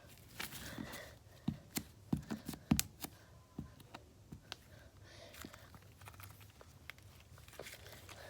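Slime being squished and worked by hand, with a quick run of sharp clicks and pops between about one and a half and three seconds in, and softer crackling later.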